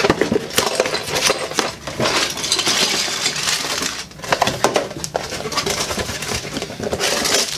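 A cardboard toy box and small hard plastic Playmobil parts being handled. Continuous rustling and scraping, dense with small clicks and clatters.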